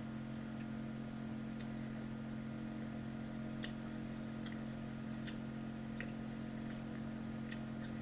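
Steady electric hum of a home-made dehydrator converted from an old fridge, running, with faint, irregular clicks scattered through it.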